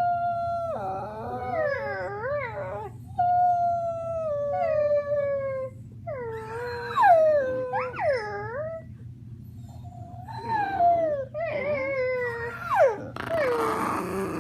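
Dogs howling together in long, wavering howls that swoop up and down in pitch, at times two voices overlapping, with short breaks between phrases. Near the end there is a rougher, noisier stretch.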